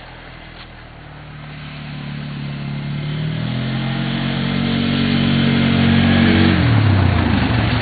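Four-wheeler (ATV) engine approaching, growing steadily louder over several seconds, then dropping in pitch near the end.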